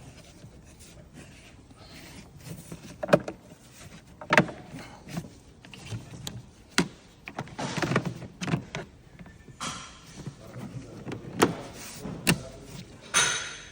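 Plastic knocks, clicks and scraping as a cabin air filter is slid into its housing, with several sharp knocks spread through the stretch and longer scrapes about eight and ten seconds in.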